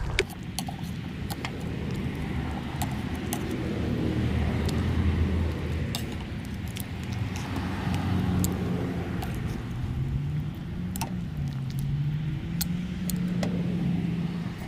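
Pot of water at a rolling boil with pork belly in it: a steady low rumble with scattered small pops and clicks.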